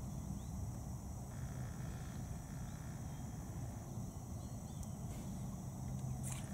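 Quiet outdoor ambience: a steady low rumble with a thin steady high whine, and a few faint, brief bird chirps.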